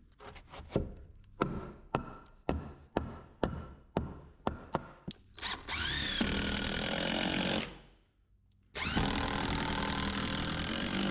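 A run of sharp knocks, about two a second, then a power drill running twice, about two seconds each with a short pause between, spinning up at the start of each run, as screws are driven for the solar panel mounting brackets.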